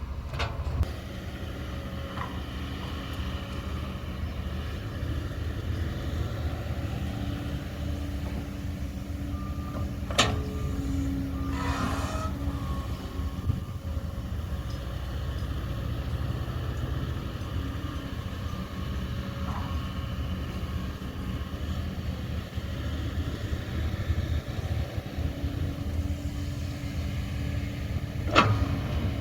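Hydraulic excavator's diesel engine running steadily as the machine works sand, its note rising at times under load. A few sharp metallic clanks sound over it: one at the start, one about ten seconds in and one near the end.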